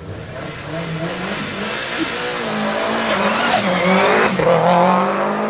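Modified Subaru Impreza WRX STI's turbocharged flat-four boxer engine revving hard under acceleration, getting louder as the car comes closer, its pitch rising and falling.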